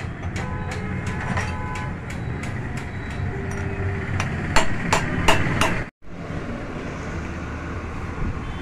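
A hammer drives a steel drift against a car shock-absorber strut's top mount, with about five sharp metal strikes in quick succession from about four and a half seconds in, the loudest near the start. A steady low hum of street traffic runs underneath, with horns tooting in the first seconds.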